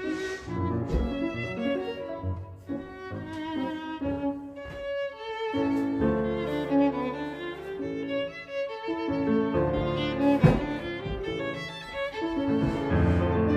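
Background instrumental music led by violin and other bowed strings.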